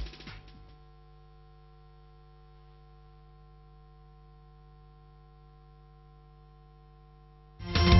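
A faint, steady electrical hum made of several fixed tones, left after music dies away within the first second. Loud music cuts in suddenly near the end.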